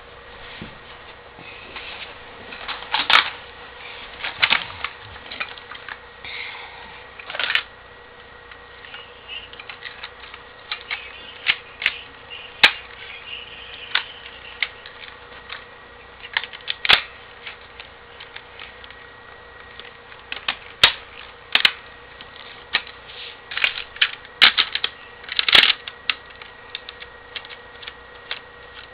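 Crosman Stinger R34 airsoft rifle being put back together by hand: irregular clicks, snaps and knocks as its parts are fitted and locked on, some in quick clusters of several clicks.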